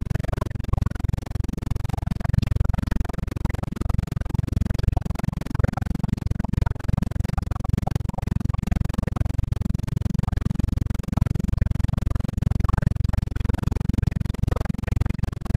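Robinson R22 helicopter cabin noise in flight: steady engine and rotor noise with heavy wind buffeting on the microphone from the open air stream through the cabin, a dense low rumble that flutters rapidly.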